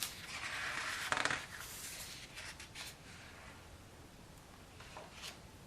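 A book's paper page being turned: a rustling swish in the first second and a half with a small click in it, then a few faint ticks.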